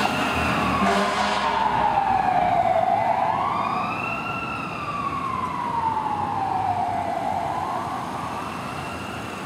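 Fire apparatus siren on a slow wail, its pitch rising and falling about once every four to five seconds, with traffic noise underneath.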